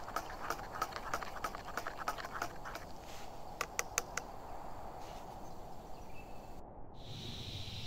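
A spoon stirring coffee in a stainless steel mug, clinking against the metal wall about four times a second, then a few last louder taps and stopping about four seconds in.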